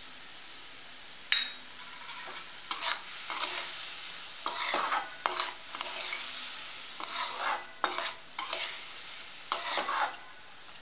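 Flat metal spatula stirring and scraping soaked moong dal around a metal kadhai in irregular strokes, with a sharp clang of the spatula on the pan about a second in. Under it a soft steady sizzle of the dal frying in ghee.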